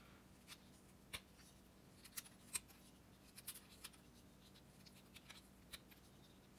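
Carving knife whittling the end of a wooden dowel to a point: a scatter of short, faint cuts and scrapes at an irregular pace as small chips come off.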